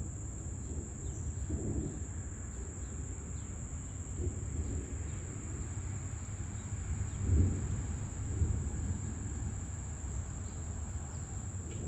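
A steady, high-pitched insect chorus trilling without a break, over a low rumble that swells to its loudest about seven and a half seconds in and again a second later.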